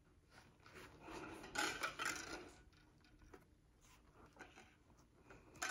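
Faint rubbing and scraping as hands handle a motorcycle helmet shell and its chin-mounted GoPro, in a few soft swells between one and two and a half seconds in, then light ticks.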